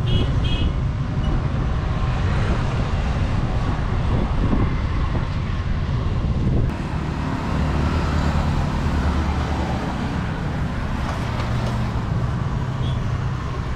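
Steady outdoor rumble of road traffic, heaviest in the low end. The sound changes abruptly about halfway through, at an edit.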